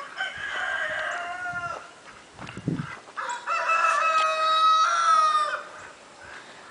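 Two rooster crows, the second louder and longer than the first, each a long held call.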